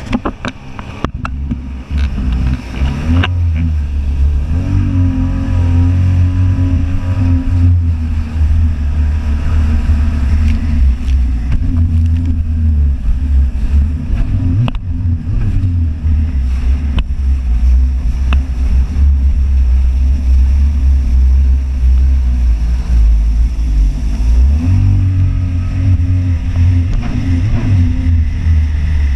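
Jet ski engine running at speed over rushing water, a steady low drone. The engine note rises twice as it speeds up, about four seconds in and again about five seconds before the end. A few sharp knocks come through along the way.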